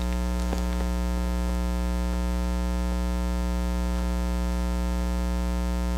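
Steady electrical mains hum with a buzzy stack of overtones and an unchanging level, with a couple of faint clicks in the first second.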